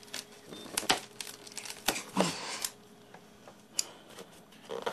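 Scissors and hands working a taped cardboard packing box: irregular rustling, scraping and sharp clicks as the packing tape is cut and the box is handled.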